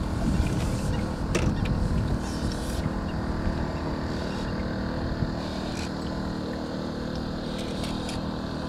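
Water slapping against the side of a small drifting metal boat, with wind on the microphone and a few light knocks.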